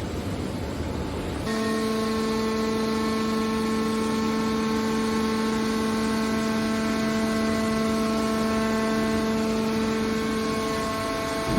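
Hydraulic scrap-metal baler running, with a steady hum at a fixed pitch that sets in about a second and a half in over the general machine noise.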